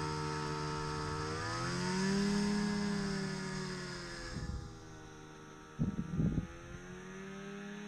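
Two-stroke snowmobile engine revving up under load as it tows a heavy log, then falling in pitch and fading as it pulls away. A short burst of knocks about six seconds in.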